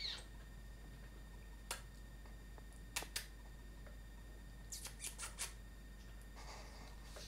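Small sounds of a sheltie puppy shifting at its bed: a short high squeak at the very start, a few scattered sharp clicks and taps with a quick run of them about two-thirds through, and a soft rustle near the end.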